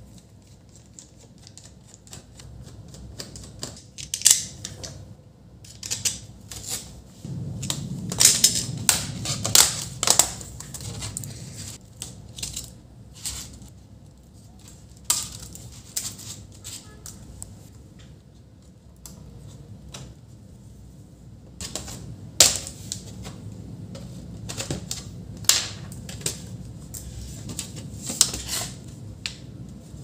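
Irregular clicks, taps and knocks from an HP EliteBook 840 G3 laptop being taken apart by hand: a small screwdriver working the bottom-cover screws, and the plastic and metal case parts and keyboard being lifted, pried and set down. The clicks come in busy clusters with short quiet gaps between them.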